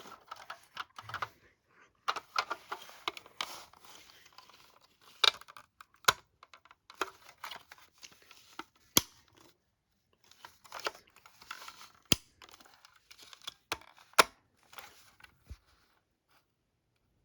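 Plastic smoke alarm being handled: irregular rustling and scraping with scattered clicks and several sharp plastic snaps. The alarm does not sound.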